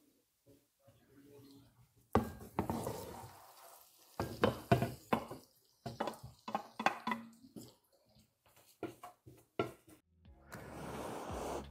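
Wooden spatula scraping and knocking against a frying pan, with a glass pan lid clinking, in a run of irregular clatters. Music comes in near the end.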